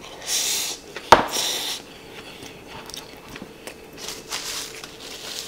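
A person eating from a rice bowl with chopsticks: a mouthful taken and chewed, the mouth noises coming in short spells, with one sharp click about a second in.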